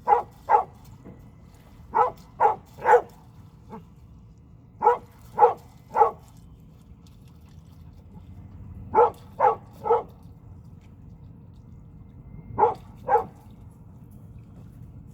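A dog barking in short bursts of two or three barks about half a second apart, with a pause of a few seconds between bursts.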